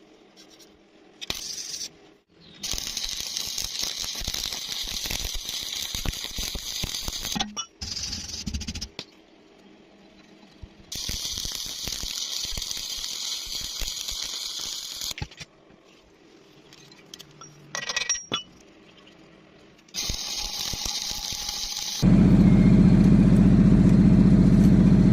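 Electric welding arc crackling and hissing in a series of separate welds, each lasting from about a second to several seconds, with pauses between them. About three seconds before the end, a louder steady low hum starts.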